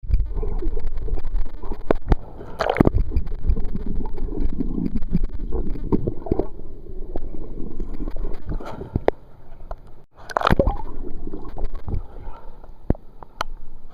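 Pool water sloshing and gurgling around a kayak, with several sharp knocks and splashes.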